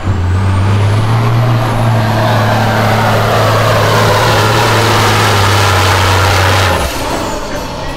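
Semi truck's diesel engine at full load, pulling a weighted sled with a steady, loud drone and a high whine that rises over the first two seconds. The engine note drops off abruptly about seven seconds in.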